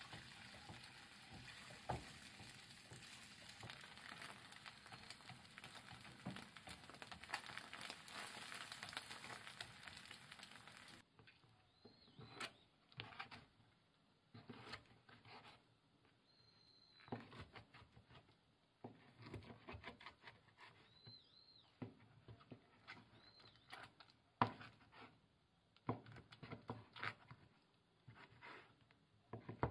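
Eggs sizzling in a non-stick frying pan while being stirred with chopsticks; the sizzle cuts off suddenly about eleven seconds in. Then a kitchen knife slicing grilled chicken on a wooden cutting board, with scattered knocks of the blade on the board.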